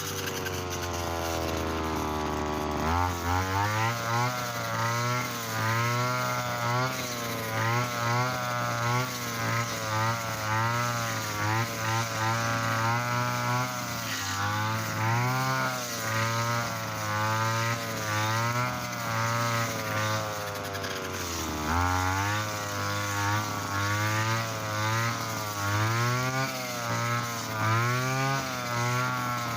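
Small petrol engine of a Mitsuyama brush cutter running with its 2.4 mm nylon line cutting thick, tough field grass; the engine speed rises and falls about once or twice a second as the line bogs in the dense stems and frees up. It runs slower and lower at the start and dips sharply once more about two-thirds of the way through before picking up again.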